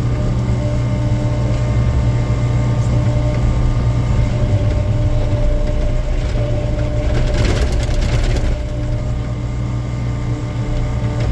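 Excavator diesel engine running steadily under hydraulic load, with a short burst of rattling noise about seven seconds in.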